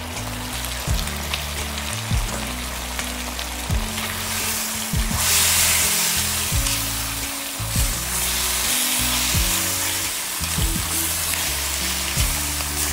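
Sauce sizzling in a hot wok as fried chicken pieces and vegetables are tossed with a spatula. The sizzle swells loudest about halfway through, over background music with a stepping bass line.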